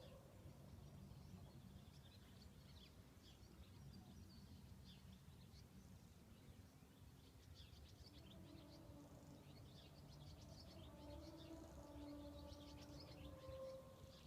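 Faint outdoor ambience: small birds chirping and twittering over a low steady rumble, with faint drawn-out tones wavering in pitch in the second half.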